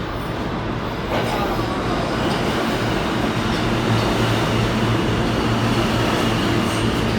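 New York City subway train running along the platform, getting louder about a second in: a steady low hum over rumbling wheels, with a faint high whine from a couple of seconds in.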